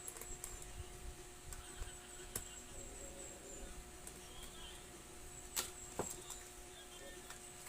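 Scattered small clicks and taps of a screwdriver working screws out of a laptop's plastic bottom cover, the loudest pair about five and a half to six seconds in, over a faint steady hum.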